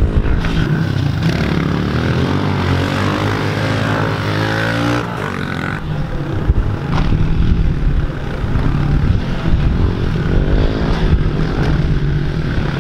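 Pit bike engines revving on a dirt track, the pitch rising and falling again and again as riders work the throttle over the jumps, with several bikes heard together near the end.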